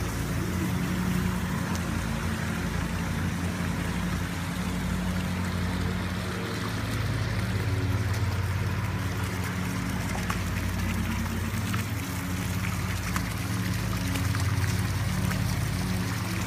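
Pool water features running: a sheer-descent waterfall pouring in a sheet from a stone pillar and arcing deck jets splashing steadily onto the pool surface, over a low steady hum.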